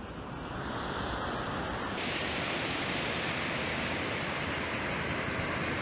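Steady rush of river water pouring over rocky rapids: an even hiss that turns abruptly fuller and brighter about two seconds in.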